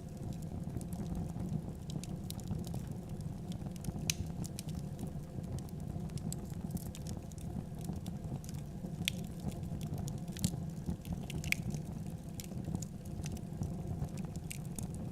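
Wood fire crackling in a fireplace: a steady low rumble of the flames with sharp pops and snaps scattered irregularly throughout.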